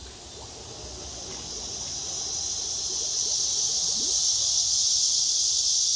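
Insects calling in a steady high-pitched chorus that swells over the first few seconds and then holds loud.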